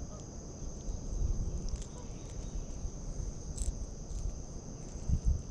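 Steady high-pitched insect chorus, over a low rumble on the microphone and a few faint clicks.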